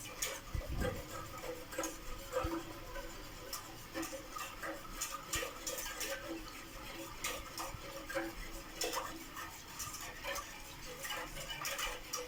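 A utensil stirring béchamel mix into cold milk in a pot, with irregular clinks and scrapes against the pot's sides.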